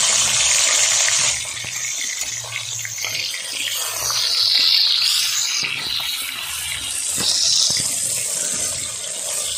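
Rohu fish steaks sizzling and crackling in hot oil in a cast-iron kadai as a steel spatula turns them. The sizzle swells louder about four seconds in.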